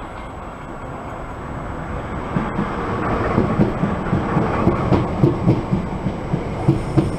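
A Class 465 Networker electric multiple unit runs into the platform and passes close by. Its rumble grows louder, and from about three seconds in its wheels clatter rhythmically over the track, a few beats a second.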